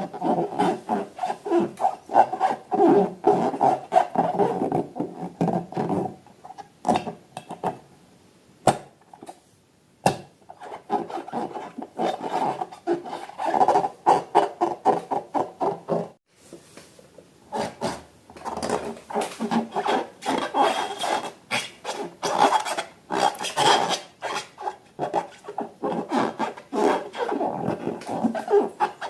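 Balloons rubbed and squeezed by hand, giving runs of quick rubbery squeaks with two short pauses.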